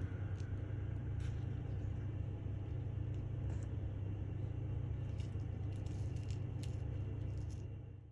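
Steady low rumble with a few faint clicks, fading out near the end.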